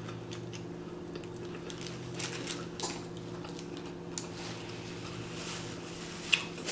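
Close-miked chewing of a smash burger, with faint wet mouth clicks and smacks scattered through, over a steady low hum. A sharper sound about six seconds in, as a paper napkin is brought to the mouth.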